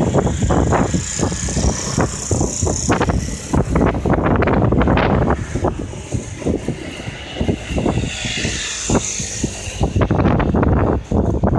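Train passing close by at the level crossing, its wheels clattering in a dense run of knocks over a steady low rumble.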